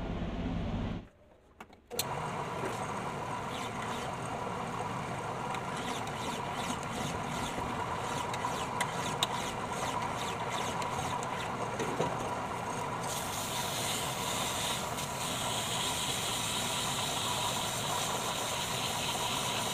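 Small homemade lathe running with a steady whine. About two-thirds of the way through, a strong hiss joins as a hand-held tool is pressed against the turning steel disc.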